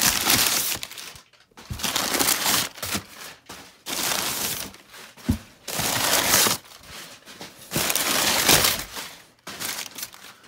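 Crumpled packing paper rustling and crinkling as hands dig through it and pull it out of a cardboard box, in about six loud bouts of a second or so each with short pauses between.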